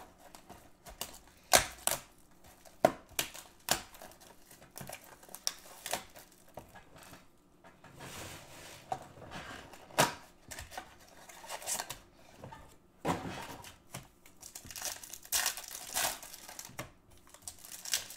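Hands tearing open and crinkling foil trading-card pack wrappers and handling the cardboard box they come in: irregular sharp crackles and rustles.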